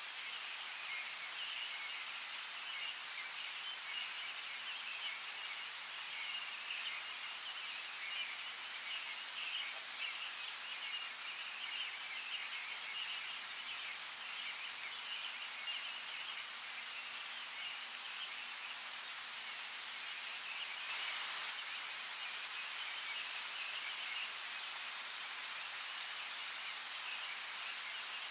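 Steady rain hissing with scattered drops pattering, under a continuous high chirping of birds that thins out near the end. The rain briefly swells louder about three quarters of the way through.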